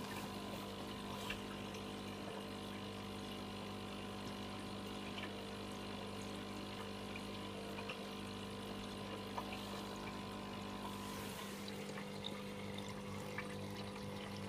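Aquarium pump humming steadily, with water moving in the tank. A few faint ticks sound now and then.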